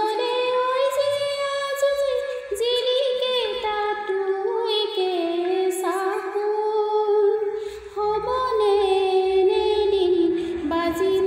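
A woman singing an Assamese folk-style song in long held notes that bend gently in pitch.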